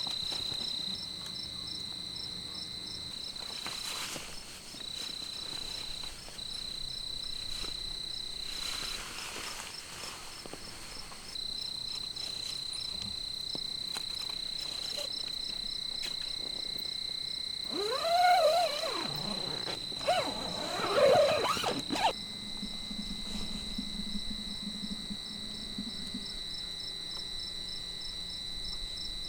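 Crickets trilling steadily in a high, continuous chirr with fast even pulsing. About two-thirds through, two louder, short sounds with a wavering, swooping pitch stand out over the trill.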